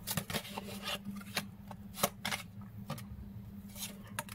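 A deck of oracle cards being shuffled by hand: soft, irregular rubbing and flicking of card edges, with scattered light clicks.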